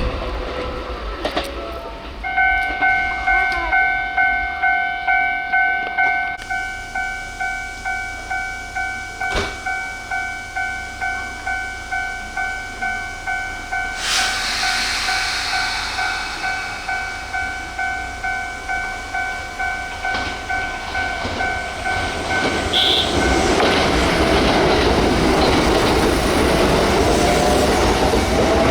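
Japanese railway level-crossing alarm ringing, an electronic ding about twice a second, that starts about two seconds in. A Kintetsu Nara Line train grows louder from about halfway and passes over the crossing with wheel clatter for the last several seconds, drowning out the alarm.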